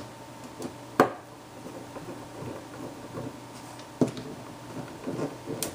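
Screwdriver starting small screws into a plastic toner cartridge housing: light handling and scraping of plastic parts, with two sharp clicks, about a second in and about four seconds in.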